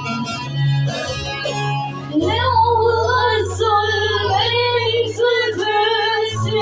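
Live performance of a Turkish folk song: instrumental accompaniment, then a woman's singing voice comes in about two seconds in and carries the melody over it.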